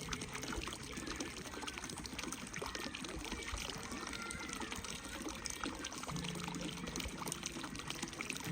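Steady running, trickling water. A low, steady musical note fades in and out underneath, stopping just after the start and coming back about six seconds in.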